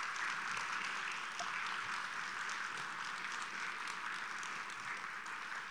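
Audience applauding: many hands clapping at a steady level, easing slightly near the end.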